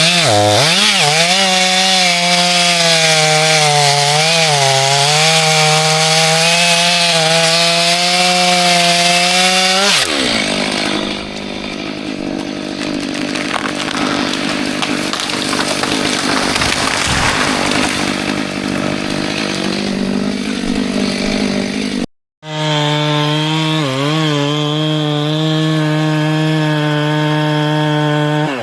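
Chainsaw running at high revs and cutting wood, its engine note dipping briefly now and then as the chain bites under load. About ten seconds in the sound turns rougher and quieter for a stretch, then after a brief dropout the steady saw note returns with the same short dips.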